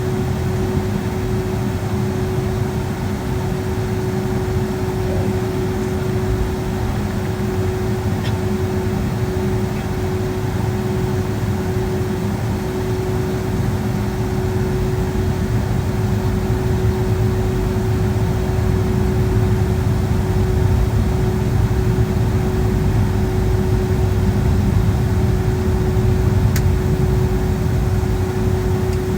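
Boeing 757-200 jet engines and airflow heard from inside the passenger cabin: a steady roar with a constant engine hum tone, growing slightly louder toward the end.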